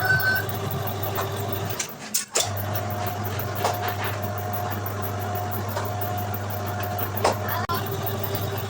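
A workshop machine's electric motor running with a steady hum. It stops briefly about two seconds in and starts again, with a few sharp clicks along the way.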